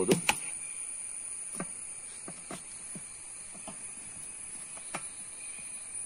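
A metal ladle tapping and scraping lightly inside an aluminium idli steamer while batter is spread over banana leaf: scattered soft knocks and scrapes, one or two a second. A steady high-pitched insect hum, like crickets, runs underneath.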